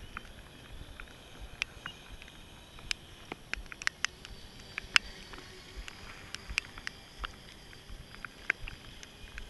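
Irregular sharp taps of raindrops landing close to the microphone, the loudest about halfway through. Underneath them is a faint, steady high whine from the brushless electric motor of a distant RC speedboat running across the lake.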